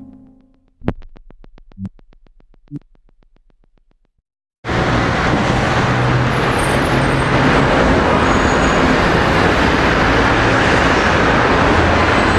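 A fading musical drone breaks into rapid even ticks with three low thumps about a second apart, then a brief silence. City street traffic noise then cuts in suddenly and stays loud and steady.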